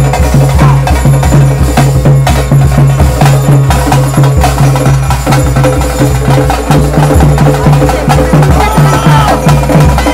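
Ritual drums playing loud, with a fast, even beat, and some held tones above the drumming: the music that accompanies a Tulu daiva (bhuta kola) ritual.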